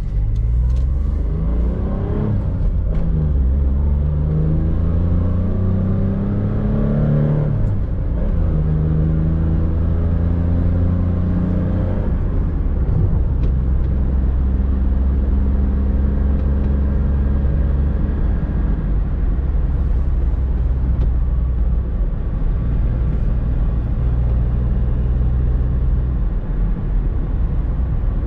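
Suzuki Swift's small petrol engine, heard from inside the cabin while driving. The engine note climbs, drops about eight seconds in as a gear is changed, and climbs again. From about twelve seconds in it settles to a steady cruise hum with tyre and road noise.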